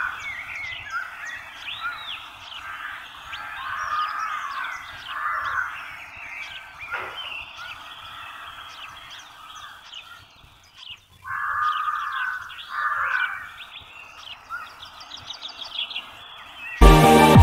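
Several birds chirping and calling, with short rising and falling notes overlapping, thinning out for a moment about two-thirds of the way through. Loud electronic music cuts in just before the end.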